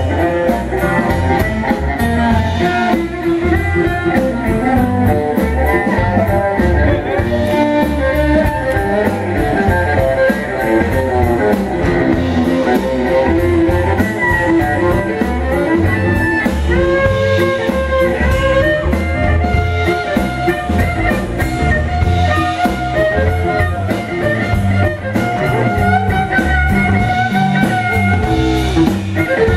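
Live instrumental rock music from a band: an amplified cello played standing, bowed in places, over bass and a drum kit keeping a steady beat.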